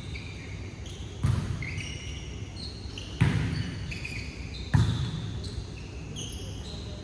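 Volleyball struck three times, about a second and a half to two seconds apart, each hit echoing in the indoor hall. Short high squeaks of sneakers on the court sound between the hits.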